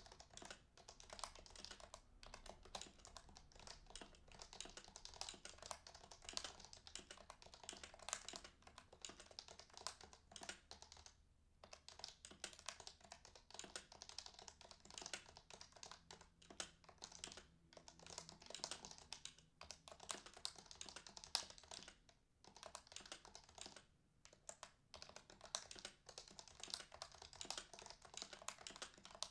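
Typing on an HHKB Professional 1 keyboard with lubed Topre BKE Replica heavy domes: a rapid, continuous run of keystrokes that breaks off briefly about three times.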